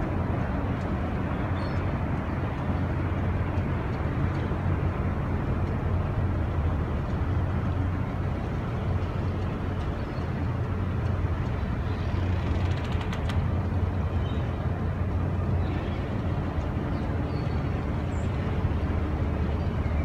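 Tugboat diesel engine running with a steady low rumble and hum, with no change through the stretch.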